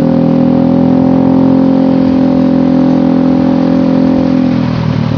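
Motorcycle engine running through a Trioval long-header aftermarket exhaust. The exhaust note holds steady at raised revs, then drops back to a lower, steady note about four and a half seconds in.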